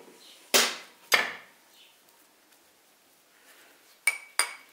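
Steel engine parts, a D115 tractor engine's connecting rod, big-end bearing cap and piston, knocking and clinking as they are handled. Two sharp knocks about half a second apart near the start, then near the end a quick run of four ringing metallic clinks.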